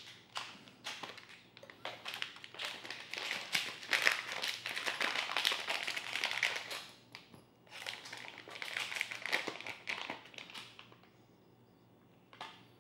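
Clear plastic packaging bag crinkling as it is handled, in two long stretches with a short pause between them, then a single small click near the end.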